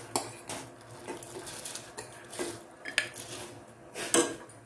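Metal spoon clinking and scraping against a glass bowl and a steel pot as soaked basmati rice is pushed into hot beetroot juice and stirred: about six separate clinks and scrapes.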